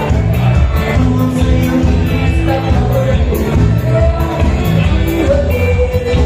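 Live dance band playing amplified music with electric guitar, keyboard and drums: a steady beat over a strong bass, with vocals.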